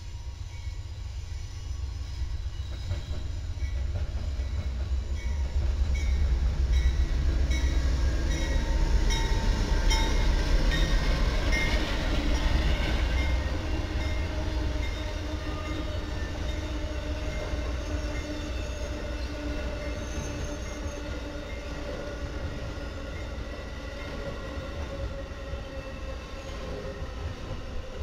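A train rolling past: a deep rumble that builds to its loudest about halfway through and then slowly fades, with steady high squealing tones from the wheels on the rails.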